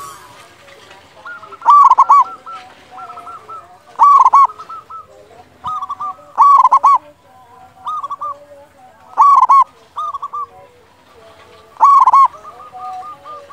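Zebra dove (perkutut) cooing: five loud, ringing phrases about every two and a half seconds, with softer cooing notes between them.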